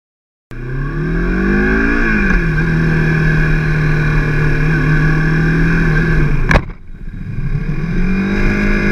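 Motorcycle engine revving up, then running steadily. About six and a half seconds in, a single sharp bang as it strikes a car, followed by a brief drop in the engine sound before it revs up and holds again.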